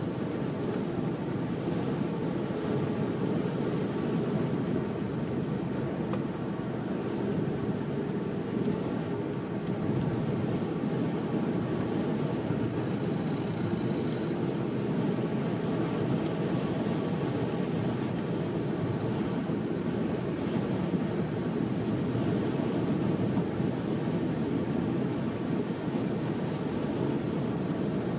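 Car driving at steady speed, heard from inside the cabin: an even engine and tyre rumble. About twelve seconds in, a high hiss joins it for about two seconds.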